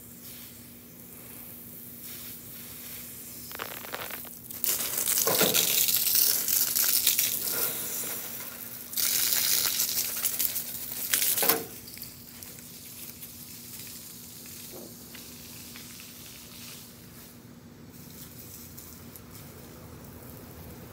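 Garden hose spray hissing onto the grass close by, in two spells of a few seconds each, the second cutting off abruptly.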